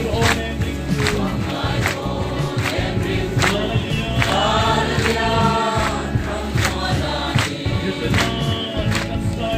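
A group of voices singing a gospel song together, over a steady drum beat of about one and a half beats a second.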